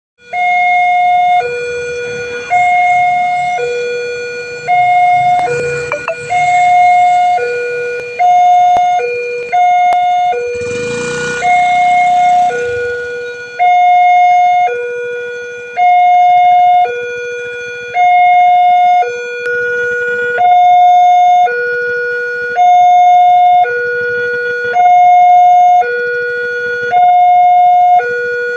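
Railway level-crossing warning siren sounding a two-tone high-low alarm, alternating between two tones about a second each.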